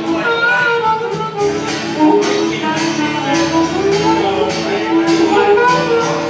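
Acoustic guitar strummed in a steady rhythm while a harmonica plays a melody of held, bending notes over it.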